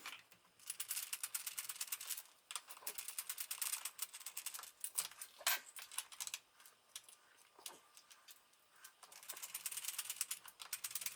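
Runs of rapid small clicks, three of them with pauses between, as a door latch plate is screwed into place.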